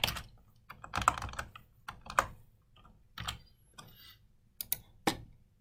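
Computer keyboard keystrokes: a quick run of key presses at the start and again about a second in, then single taps spaced about a second apart, as a mistyped word is deleted and retyped.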